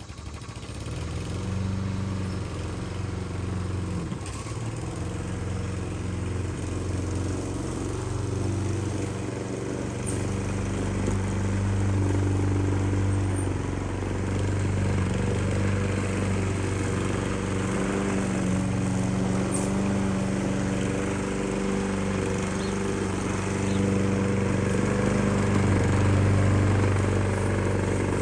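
Small petrol engine of a grass cutter running steadily, its pitch shifting a little as the throttle varies.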